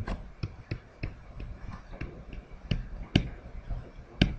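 Digital pen stylus clicking and tapping against its writing surface while words are handwritten: irregular sharp clicks, a few per second, the loudest about three seconds in and near the end.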